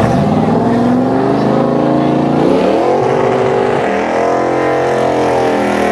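A car engine revving up, its pitch rising steadily for about two and a half seconds, then climbing higher and holding steady.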